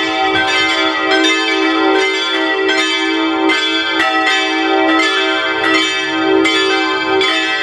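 Full peal of five church bells from the Rincker foundry, tuned e'' g'' a'' c''' d''', all swinging together. Their strikes overlap in a steady, dense ringing, with a new stroke every fraction of a second.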